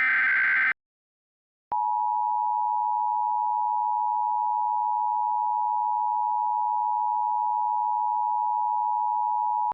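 The last moment of an Emergency Alert System SAME header data burst. After about a second of silence comes the EAS attention signal, a steady two-tone 853 and 960 Hz tone held for about eight seconds that cuts off sharply.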